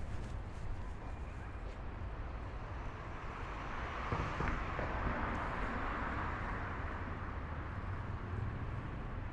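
Street traffic noise, with a vehicle passing that swells and then fades from about three to seven seconds in.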